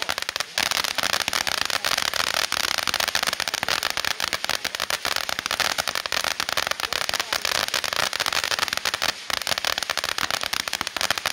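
Popcorn fountain firework firing: a dense, continuous crackle of many small, rapid pops, with a couple of brief lulls.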